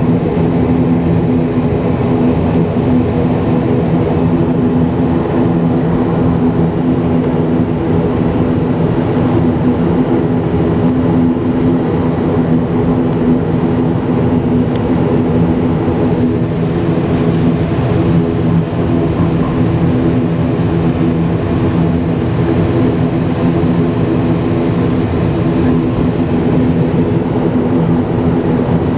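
Steady drone of an ATR 72-500's twin turboprop engines and propellers heard from inside the cabin, a low hum of constant tones over a rushing noise, with no change in pitch or level.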